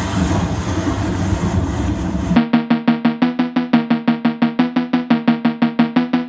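A steady noisy rumble, then about two and a half seconds in a sudden switch to dance music: a fast, even run of pitched, struck percussive notes, about six a second.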